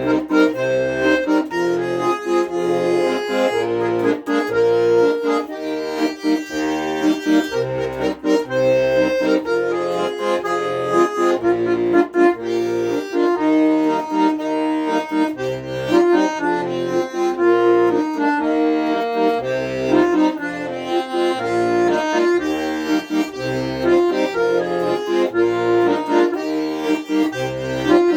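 Accordion playing an instrumental passage: a melody in held notes over a steady, regular bass accompaniment.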